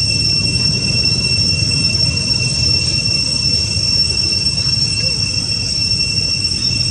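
Steady, high-pitched drone of forest insects, holding one unbroken pitch throughout, over a low rumbling background.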